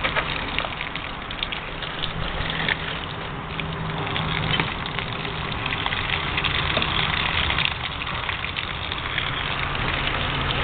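Water being poured over dry seed-starting pellets in a plastic seed tray, a steady splashing hiss, with a low steady hum underneath.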